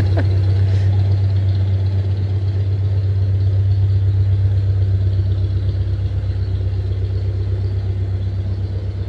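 Narrowboat engine running steadily at low cruising revs, a constant low hum that gradually gets quieter.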